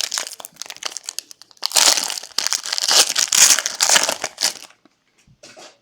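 Plastic foil wrapper of a trading card pack crinkling loudly as it is opened and handled; the crinkling stops about a second before the end.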